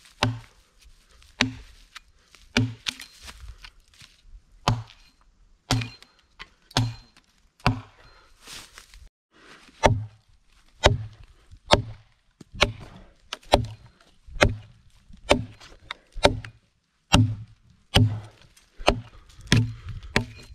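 Hatchet chopping into a debarked log to cut a notch: a steady run of hard wooden strikes, about one a second.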